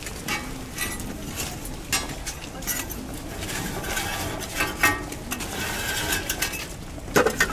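Light taps and clinks of cakes and a cooking tool on a flat griddle, with a brush scraping across the griddle surface about four seconds in, and a sharper knock near the end.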